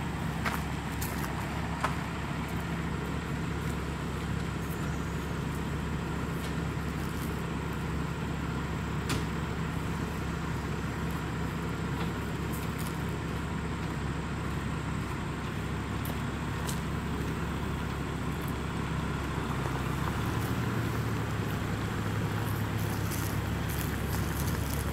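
Tow truck's diesel engine running steadily under load while pushing a broken-down bus slowly in reverse. Its note steps up and grows slightly louder about twenty seconds in.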